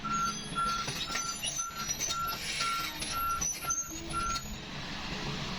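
Warning alarm on a Volvo excavator beeping at one steady pitch about twice a second over its running diesel engine, with some clatter from the working machine; the beeping stops about four and a half seconds in while the engine runs on.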